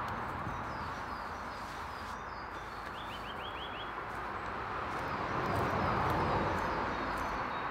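Steady outdoor background noise with a bird chirping, including a quick run of about five notes about three seconds in.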